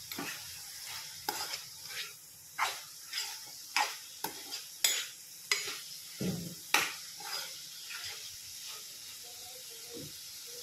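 A spoon stirring spiny gourd (kartule) bhaji in a nonstick kadhai, scraping and knocking against the pan about once or twice a second, over a steady sizzle from the cooking vegetables. The strokes thin out after about seven seconds. This is the stir partway through cooking under the lid.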